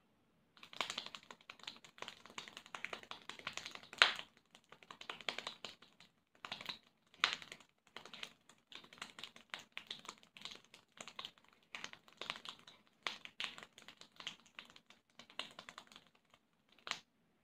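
A child clapping as fast as he can, palms and fingers flat together, making a dense rapid patter of light hand claps at about twenty claps a second. It starts about half a second in and stops about a second before the end, with one last stray clap after.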